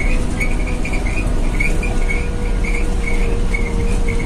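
A Sany mining dump truck driving down a haul-road ramp, heard from inside the cab: a steady low rumble of engine and tyres with a constant hum. A high-pitched squeal keeps cutting in and out the whole time.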